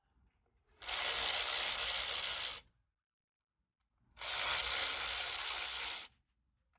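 Two hissing sprays of pressurised gas, each about two seconds long, with a short pause between them.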